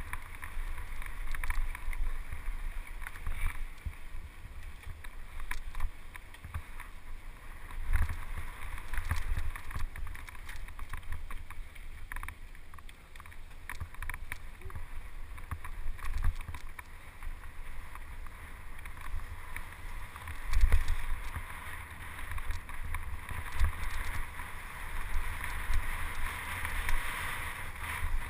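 Mountain bike riding down a dirt trail: wind buffeting the microphone over a steady rumble of tyres on dirt and rock, with frequent rattles and knocks from the bike going over roots and rocks, the loudest knock about two-thirds of the way through.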